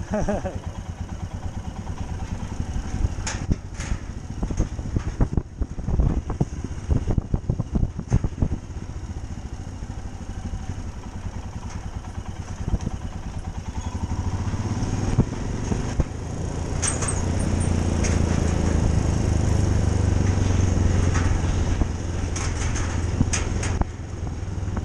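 Motorcycle engine running at low speed, with a run of sharp knocks and rattles in the first several seconds. The engine grows louder from about halfway through.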